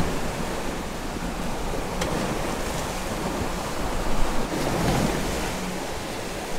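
Water rushing along the hulls of a Corsair 880 trimaran sailing at about 12 knots, mixed with wind: a steady rushing hiss that swells slightly around four to five seconds in.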